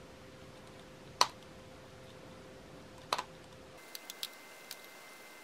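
Sharp clicks and light ticks of a precision screwdriver's metal bit engaging the small screws in a Milwaukee tape measure's plastic case as they are backed out: one loud click about a second in, a double click near three seconds, then a few faint ticks.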